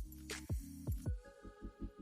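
Background electronic music: deep kick drums that drop in pitch over a held bass chord, then quick, evenly repeated bass pulses from about a second in.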